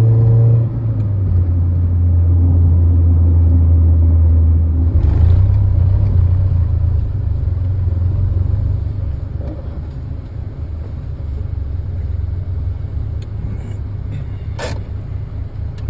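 1996 Acura Integra LS's 1.8-litre four-cylinder engine running, heard from inside the cabin as the car slows and pulls in. Its drone drops in pitch about half a second in, turns rougher after about five seconds, and a single sharp click comes near the end.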